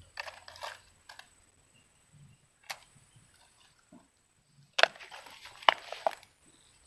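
Rustling with several sharp clicks and knocks, the loudest a cluster about five seconds in.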